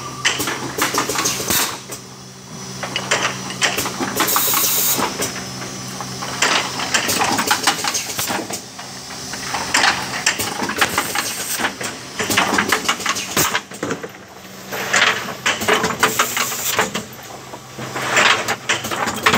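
Automatic perfume filling and capping machine running: a steady motor hum under a continuous clatter of glass bottles and mechanism clicks, with short hisses now and then.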